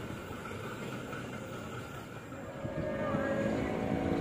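A passenger train's rumble fading as it rolls away. From about two and a half seconds in, the steady drone of a CC201 diesel-electric locomotive's engine grows louder as it approaches.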